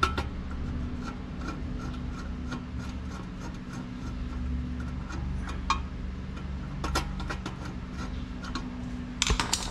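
A screwdriver turning a screw out of a metal bracket inside an opened rice cooker base: a run of small rubbing clicks, about three or four a second, with louder clusters of clicks near the end, over a steady low hum.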